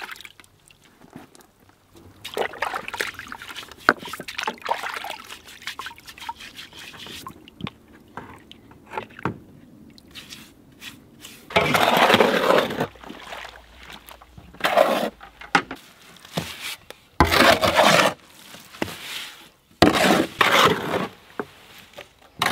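Water sloshing in a bucket as fieldstones are scrubbed clean. About halfway through, louder: water poured from a bucket into dry mortar mix in a metal wheelbarrow, and a shovel scraping through the mortar as it is mixed.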